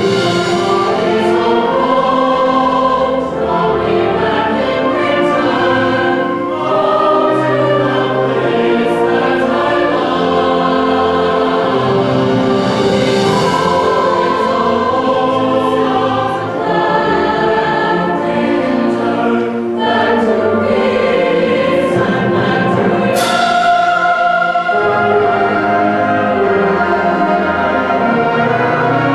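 Live ensemble music, a slow passage of sustained chords that change gradually.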